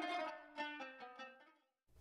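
Intro music of plucked string notes stepping down in pitch and fading away, ending in silence for the last half second or so.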